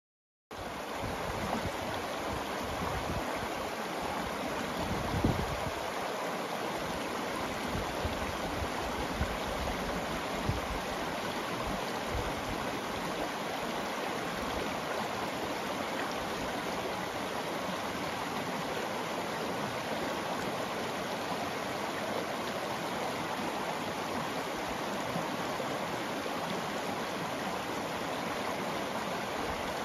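Shallow river flowing over cobbles and small riffles: a steady babbling rush of water that starts abruptly about half a second in.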